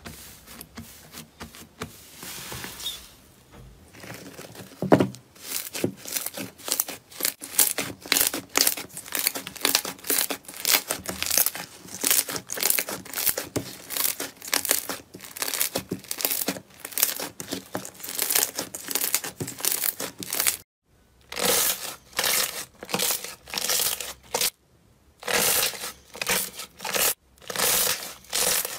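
Hands pressing, stretching and folding slime: a quick, continuous run of crackles and pops, quieter at first, with two brief silent breaks about two thirds of the way through.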